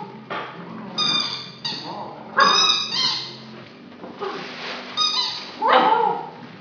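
Squeaky dog toy squeaking repeatedly as a young Irish Setter puppy bites and chews it. There are about six short, high-pitched squeaks, some sliding in pitch.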